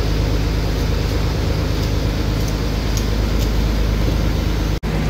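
Fishing boat's inboard diesel engine running steadily, a loud low drone that drops out for an instant near the end.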